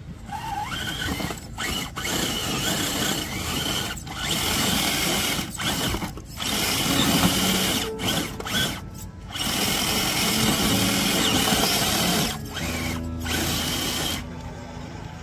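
Scale RC crawler truck's electric motor and gearbox whining as it is driven. The sound starts and stops in bursts, cutting out briefly about ten times.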